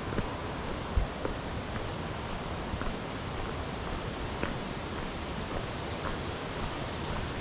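Steady rushing outdoor noise with a small bird's short, high, rising-and-falling chirps repeated about six times in the first few seconds, plus scattered light knocks and a low thump about a second in.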